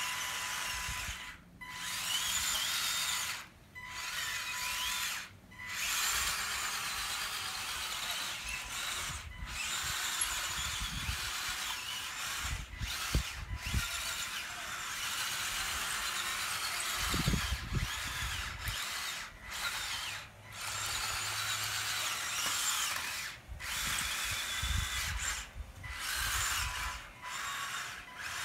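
Small electric drive motor and gears of a 1/18-scale all-wheel-drive RC snow cat whining as it drives. It stops and starts again several times, and its pitch rises and falls with the proportional throttle.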